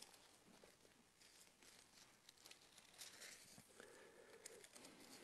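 Near silence, with faint rustling of Bible pages being turned and scattered small clicks.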